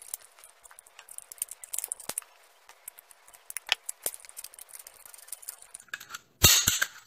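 Small metal clicks and taps as a manual staple gun's steel parts and pins are handled and pressed into place with pliers. Near the end comes a quick run of loud, sharp snaps.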